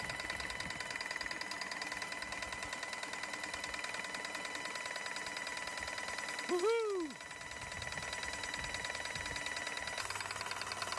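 Graco Magnum airless paint sprayer running on its test after a tune-up: the electric motor whines steadily while the piston pump ticks rapidly. About two-thirds of the way through, a brief louder tone rises and falls.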